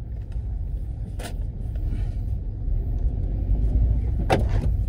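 Low rumble of a car's engine and tyres heard from inside the cabin while it is being driven, growing gradually louder, with a short click about a second in and a louder knock near the end.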